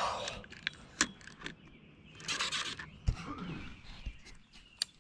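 Handling noise close to the microphone: scattered sharp clicks and knocks, with brief rustling hisses at the start and about halfway through.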